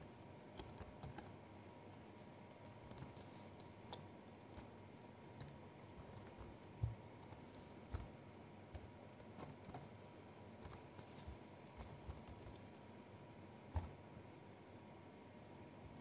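Typing on a computer keyboard: faint, irregular key clicks over a low steady hiss, with a few firmer keystrokes.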